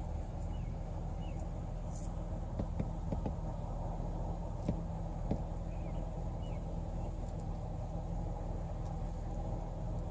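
Steady low hum of an idling engine, with a few faint clicks and several faint short chirps over it.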